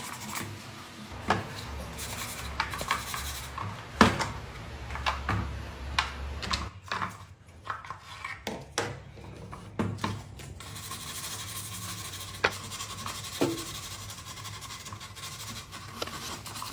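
Small wooden pieces being handled: irregular knocks and clacks with rubbing and scraping of wood on wood. A low hum runs under the first half.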